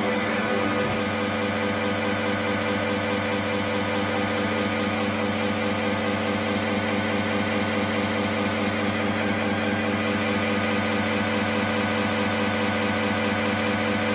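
A steady drone of several held tones stacked together, unchanging in level with a slight flutter, from the band's amplified instruments.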